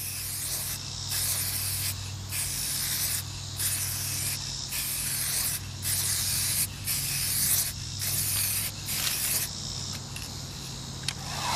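Aerosol can of UV headlight sealant spraying in about ten short hissing bursts with brief pauses between, as a second coat is passed across a sanded headlight lens.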